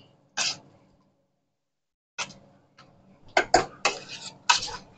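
A hand masher working soft cooked apples into applesauce: short squishing strokes against the pot, one early stroke and then a quicker run of them from about two seconds in.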